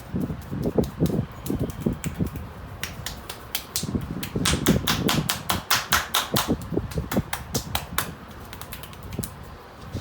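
Percussive massage strokes from a barber's hands during a head massage. Dull thumps come first, then a fast run of sharp slaps and claps of the hands that dies away about eight seconds in.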